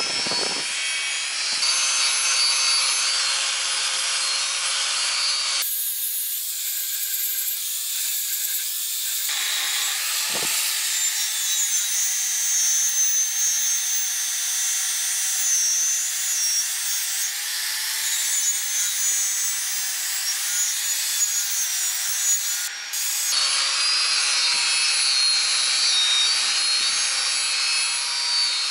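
Angle grinder running with its disc pressed on a painted bicycle frame tube, grinding the red paint off to bare metal: a steady, high grinding hiss with a faint wavering motor whine. The sound changes abruptly a few times.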